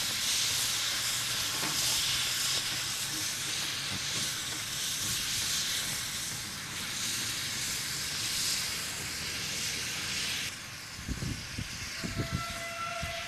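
Steady hiss of escaping steam from a QJ-class 2-10-2 steam locomotive as it moves slowly through the depot. The hiss stops at a cut, and a few low thumps and a brief faint high tone follow near the end.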